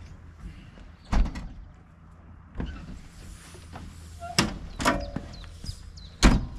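A series of sharp knocks and bangs, about five strikes a second or two apart, the last the loudest, over a steady low hum.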